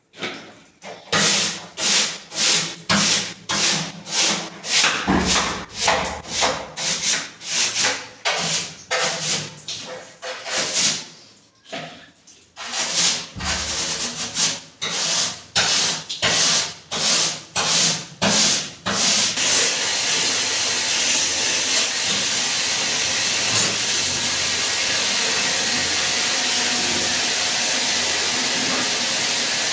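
Rhythmic scrubbing strokes, about two a second with a brief pause around the middle, while an AC outdoor unit is cleaned. About 19 seconds in they give way to a steady hiss like a water spray jet.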